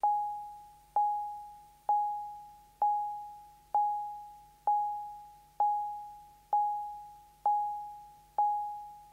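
Baha 5 sound processor's chime-like indicator beep, one steady pitch repeated ten times about once a second, each struck and fading away: the audible signal that the processor has been switched on.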